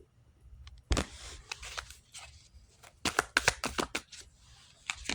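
A deck of tarot cards being shuffled and handled: a run of quick papery snaps and slides, busiest around three to four seconds in.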